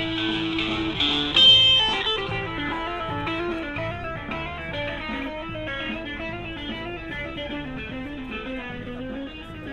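Guitar playing a melody of plucked single notes, with one louder struck chord about a second and a half in.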